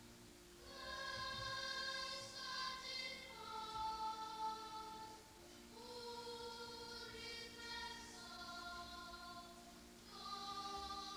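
Slow choral music: voices holding long notes in phrases of a few seconds each.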